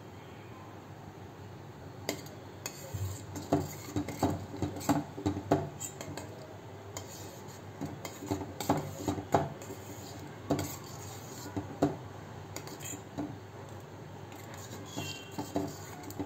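A metal spoon stirring milk tea in a stainless steel pot, clinking and scraping against the pot's sides in irregular knocks over a steady low hiss. The clinks start about two seconds in, come thickest through the middle and thin out near the end.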